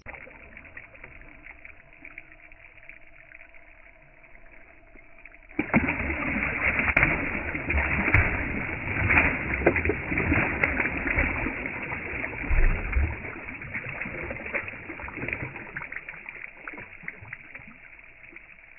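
Water splashing hard as a bowfin is held at the surface beside a kayak and thrashes before being released. The splashing starts suddenly about five and a half seconds in and tails off toward the end.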